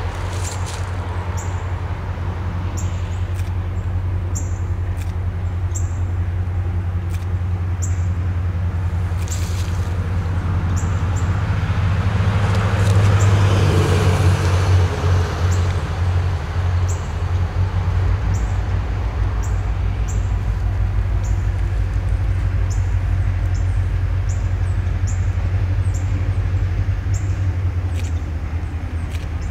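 Diesel locomotives, an ex-Rio Grande EMD GP40-3 and an ex-Southern Railway GE B23-7, creeping out of a tunnel: a low, steady engine drone that swells about halfway through. Short high chirps repeat over it.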